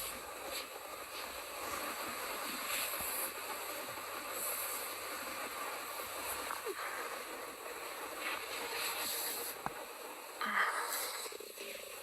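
A stomach rumbling and gurgling, recorded up close, with continuous watery churning. There is a short rising squeak about seven seconds in and a louder gurgle near the end.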